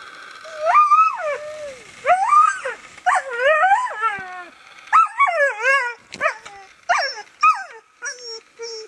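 Huskies howling and yowling in a series of short calls that rise and then fall in pitch. Two dogs overlap in the middle, and the calls turn shorter and choppier toward the end.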